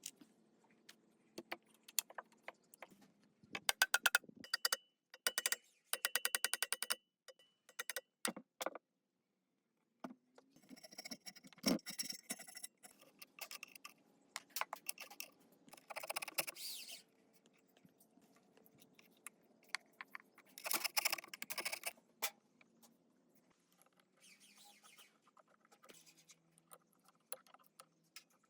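Hand tools and metal parts clinking and clicking, with runs of rapid, evenly spaced clicks a few seconds in and short bursts of scraping later on.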